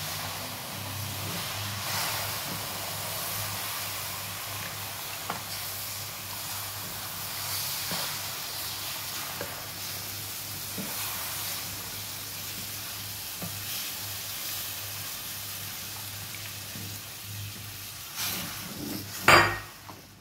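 Milk sizzling as it hits hot oil-roasted semolina in a frying pan, stirred and scraped with a slotted spatula, with a sharp knock near the end.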